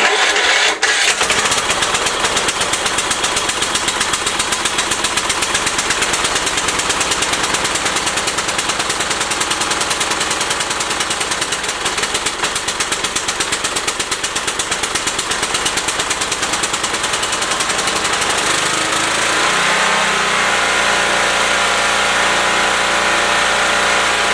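MTD riding lawn mower engine cold-starting after sitting since autumn: it catches within the first second and runs with a fast, even pulsing. About nineteen seconds in, its note changes and settles steadier.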